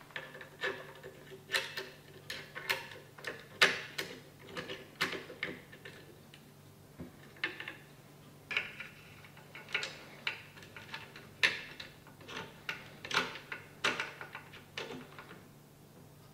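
Irregular sharp clicks and taps as a Tikka T3x rifle action is seated into a rifle chassis and its action screws are started by hand.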